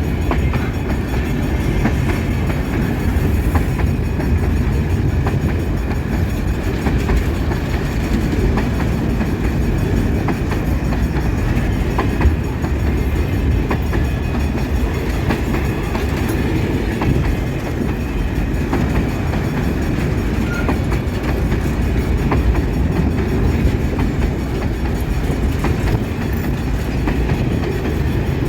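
Empty freight wagons of a long train rolling steadily past, a continuous low rumble with scattered wheel clicks over the rail joints.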